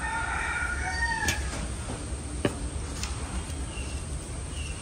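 A rooster crowing once, a call lasting just over a second at the start, followed by two sharp knocks about a second apart.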